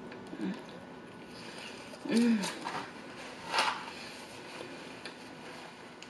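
A person chewing a mouthful of burger with closed mouth, giving two short hummed "mm"s of enjoyment, the second louder, and a short sharp noise a little past the middle.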